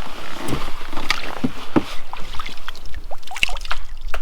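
Fishing kayak on the water: irregular small knocks and clicks against the hull and gear, over a bed of lapping water noise and a low rumble.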